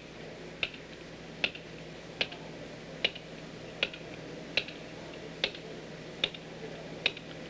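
Soft-faced mallet tapping the upper flange of an aluminum angle strip on a V-block with light, evenly spaced blows, nine taps at a little over one a second. The blows are shrinking the flange to curve the strip.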